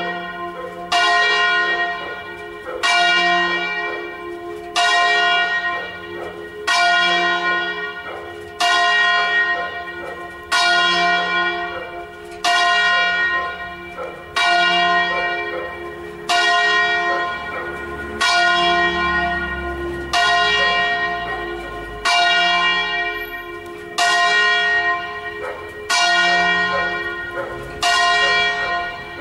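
Church bells ringing the noon peal, with a bell strike about every two seconds, each ringing out and dying away before the next.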